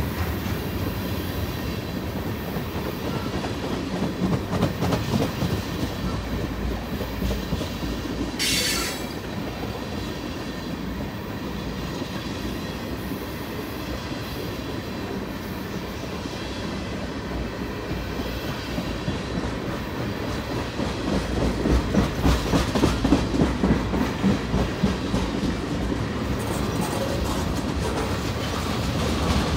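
Freight train's loaded tank cars rolling past, steel wheels rumbling and clacking over the rail joints. A brief high squeal comes about eight seconds in. The clacking grows louder and more rhythmic from about 21 seconds in.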